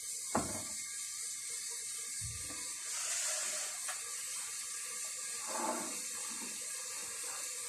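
Metal twist-off lids being screwed onto glass jars of hot-filled pickles, a few soft clicks and knocks over a steady hiss.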